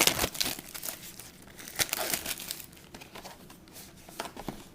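Baseball-card pack wrapper crinkling and tearing as a pack is ripped open, loudest at the start and again about two seconds in, with lighter rustles and crackles after.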